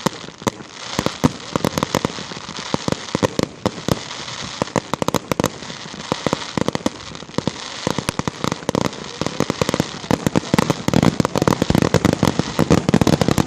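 Aerial fireworks bursting in a rapid, continuous barrage of bangs and crackles, growing denser and louder in the last few seconds.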